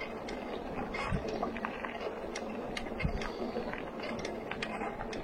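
Vehicle driving slowly over a rough, steep dirt trail: steady running noise with frequent sharp clicks and knocks from the bumpy ground, and a couple of low thumps.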